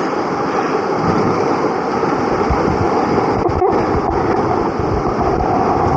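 River whitewater rushing and churning right beside the microphone, a loud steady wash, with wind buffeting the microphone.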